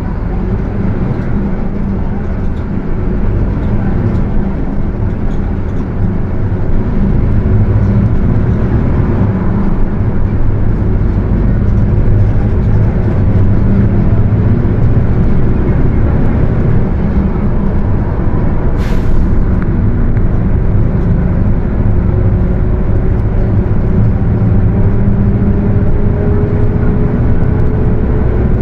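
Mercedes-Benz OF 1721 bus under way, its diesel engine pulling harder and louder through the first dozen seconds as it gathers speed. Near the end a rising whine comes in from the differential, the differential growl the recording is made for. There is a short hiss about two-thirds of the way through.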